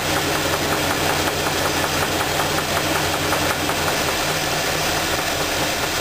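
Carbureted gasoline engine idling with a steady rhythmic knock, the sound of a spun rod bearing. About four seconds in, the engine's low steady note turns uneven.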